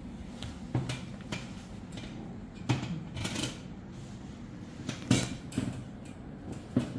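A chiropractic adjustment being given: several sharp clicks and knocks among rustling of handling, the loudest about five seconds in.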